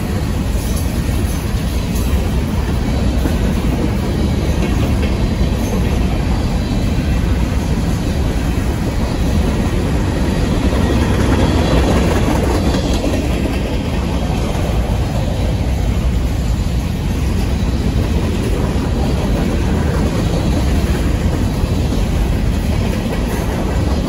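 Freight train of empty grain cars rolling past, a steady loud rumble and rattle of steel wheels on the rails.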